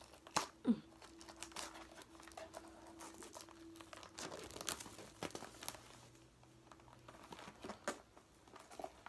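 Snack wrappers being crinkled and torn open by hand, a run of irregular rustles and small clicks.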